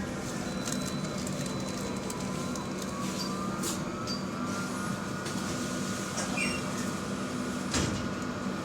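Running noise inside a Wright StreetDeck double-decker bus: a steady low hum with fainter higher whining tones that slowly drift in pitch, and a few sharp rattles or knocks, the loudest near the end.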